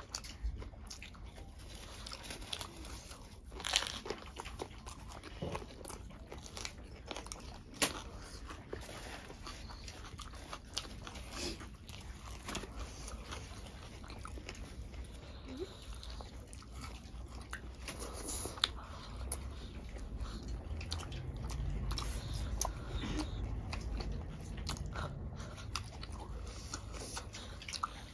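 Two people eating with their hands: biting and chewing mouthfuls of rice and side dishes, with crunches and many scattered short clicks.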